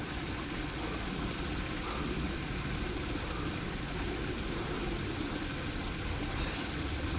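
Steady rushing of creek water, an even noise with no breaks.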